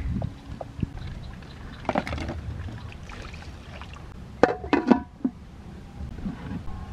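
Water poured into a metal wok of rice. A little after halfway, an aluminium pot lid clatters down onto the wok in a few quick ringing clanks.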